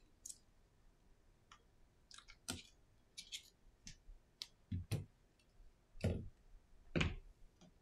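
Light clicks and taps of a precision screwdriver and small parts while an iPhone SE 2020's display assembly is unfastened and lifted off, with three louder dull knocks in the second half as the phone pieces are handled and set down.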